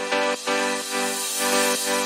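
Electronic background music: sustained synth chords pulsing to a steady beat.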